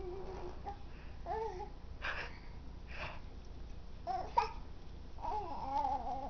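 Baby cooing and babbling in short, wavering, high-pitched sounds, with two breathy sounds in the middle and a longer coo near the end.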